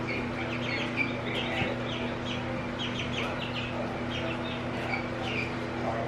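Young pullet chicks peeping, a quick string of short falling chirps one after another, over a steady low hum.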